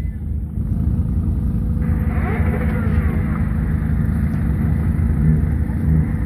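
Low, steady rumble of car engines running close by as a line of cars idles and creeps forward, with faint higher sliding sounds about two seconds in.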